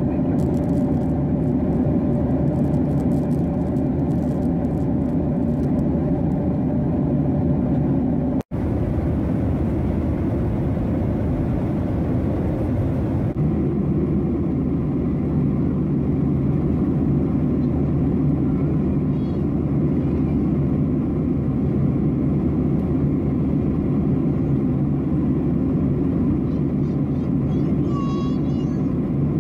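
Steady cabin noise of a Boeing 737-800 in cruise: a low, even rumble of its CFM56-7B turbofans and the air rushing past the fuselage. It cuts out for an instant about eight seconds in.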